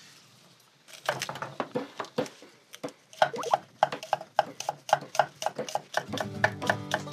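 Kitchen knife chopping green onions and chili on a wooden cutting board: after a brief hush, a run of sharp knocks that settles into a steady rhythm of about four strokes a second. Background music comes in near the end.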